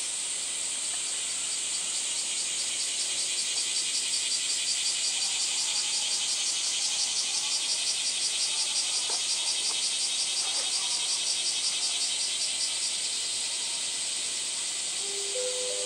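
Cicadas droning in a dense, high-pitched summer chorus. From about three seconds in, a fast, even pulsing runs through the drone, and it eases back to a steady buzz a few seconds before the end.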